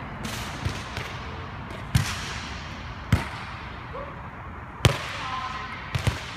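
A volleyball being struck and passed: a series of sharp slaps of the ball off hands and forearms, and bounces on the court floor, a second or so apart, each echoing in a large air-dome gym.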